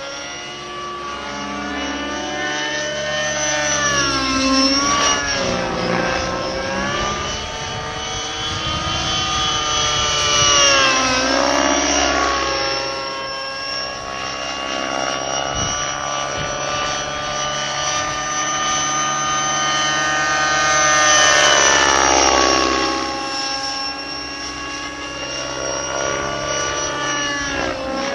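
Align T-Rex 600N nitro RC helicopter's glow engine and rotor running at high speed in aerobatic flight. Its whine dips sharply in pitch and climbs back three times as it manoeuvres.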